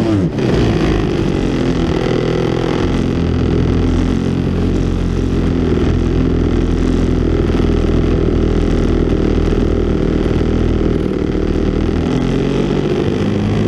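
DLE 61cc single-cylinder two-stroke gasoline engine of an RC aerobatic plane running steadily in flight, heard close from a camera taped to the fuselage. Its pitch shifts a little as the throttle changes during the manoeuvres.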